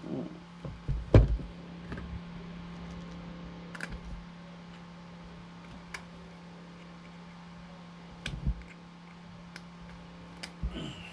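Metal hand tools clicking and knocking against an engine during broken-bolt extraction, with one sharp knock about a second in and a few lighter taps after, over a steady low hum.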